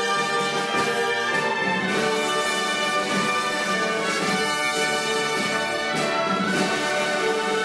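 Concert band playing, with brass and woodwinds holding full sustained chords that change every second or so.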